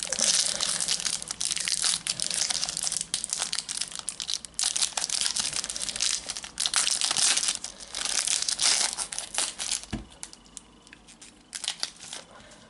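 A foil Panini Adrenalyn XL trading-card packet crinkling and tearing as it is ripped open by hand. The dense crackle dies down about ten seconds in, with one brief knock.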